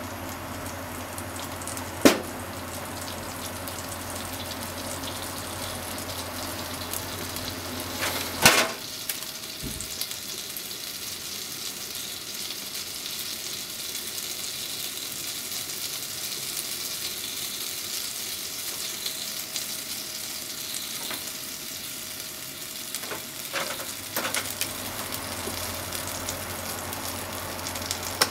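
Oil heating in a frying pan, sizzling steadily as water droplets in it bubble and fry off. A sharp click sounds about two seconds in and a louder knock a few seconds later.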